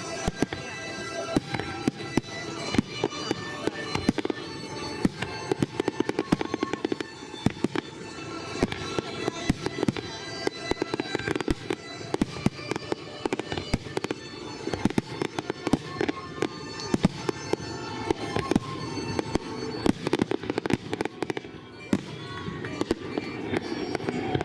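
Display fireworks going off in a dense, irregular barrage of bangs and crackling, with music playing along under the bursts.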